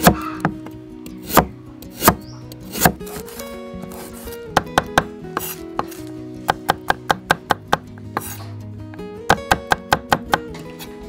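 Cleaver chopping on a wooden chopping block: a few separate strokes at first, then quicker runs of light chops, about five a second.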